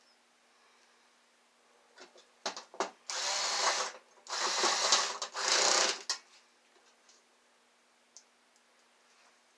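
A small power tool runs in three short bursts, each about a second or less, with a few clicks just before.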